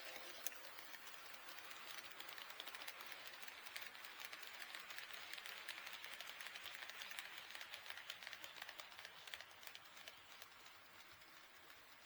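HO-scale model train running past on sectional track, its wheels clicking quickly over the rail joints with a light mechanical whir. The clatter swells, is loudest a little past the middle, and fades near the end.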